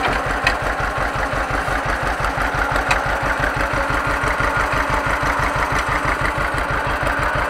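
John Deere 530's two-cylinder engine running at a slow, even pulse of about six beats a second, freshly overhauled and running after its first start.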